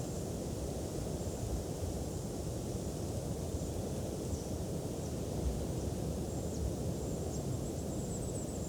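Wind buffeting the microphone as a steady low rumble, with faint, thin, high-pitched chirping over it now and then.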